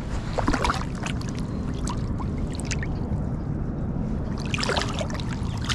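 Lake water splashing and sloshing as a hand lowers a largemouth bass in and releases it, with short splashes about half a second in and again near the end, over a steady low rumble.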